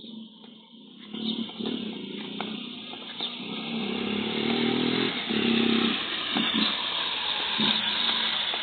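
A motor vehicle's engine approaching, coming in about a second in and growing louder, then running steadily close by, heard through a security camera's microphone.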